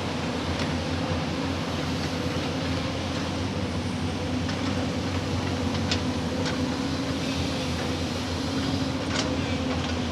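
Excavator's diesel engine running at a steady pitch, with a few short sharp clanks.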